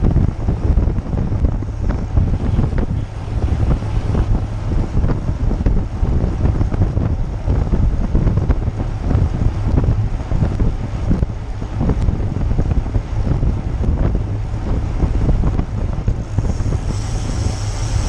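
Wind buffeting the microphone of an action camera mounted on a moving road bike, a loud, steady rumble with constant flutter.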